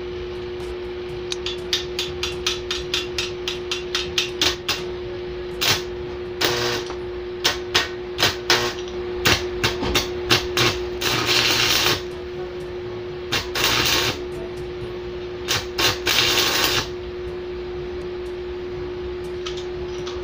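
Homemade arc welder built from microwave-oven transformers being test-fired. The stick electrode is tapped on the workpiece in a rapid series of short clicks and scratches, then catches into crackling, spitting arcs lasting up to about a second, several times in the second half, over a steady electrical hum.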